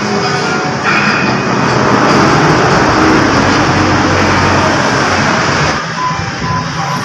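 Loud rushing motor-vehicle noise that swells about a second in and eases off near the end.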